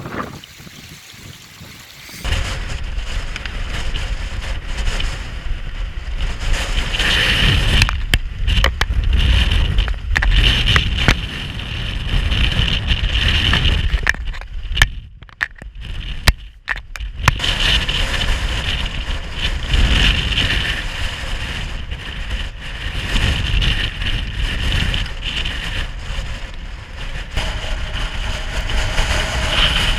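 Strong mountain wind buffeting the microphone in gusts, a heavy rumble that swells and eases, dropping away briefly in the first two seconds and again about halfway through.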